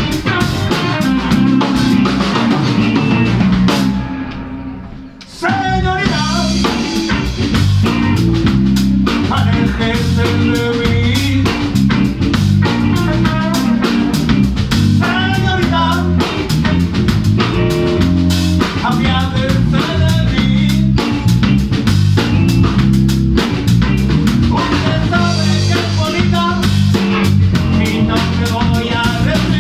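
Live blues band playing: electric guitars, bass guitar and drum kit, with a singer. About four seconds in the band drops out for a second and a half, then comes back in together.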